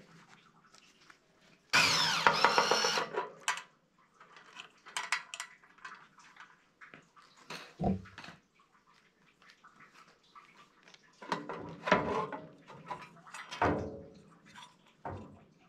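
Hand-work noises as a shop towel wipes and crumples against the dusty sheet-metal blower housing of a gas heater. There is a loud rustling burst about two seconds in lasting about a second, then scattered scrapes and knocks as the blower motor and squirrel cage are lifted out of the housing near the end.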